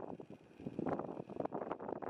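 Wind buffeting the microphone: an irregular, gusty rush with a brief lull about half a second in.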